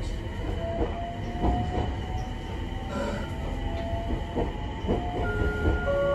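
Abukuma Express AB900 series electric train running, heard from inside the car: a steady low rumble of wheels on rail with irregular clacks over rail joints, and a faint whine from the Mitsubishi IGBT VVVF traction inverter and motors that slowly rises in pitch. A few more steady tones join near the end.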